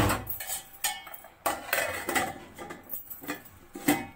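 Metal utensils clinking and clattering against a large aluminium cooking pot: a slotted steel spoon knocking on the pot and an aluminium lid being set on it, in a string of sharp, uneven clinks. The loudest come at the start, about a second and a half in, and near the end. The pot is being covered so the pulao rice can steam on dum.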